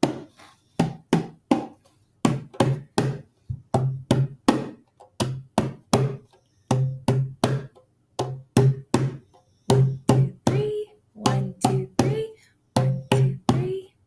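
Hand drum struck with bare hands in short rhythmic phrases of quick beats separated by brief pauses, patterns for listeners to copy back.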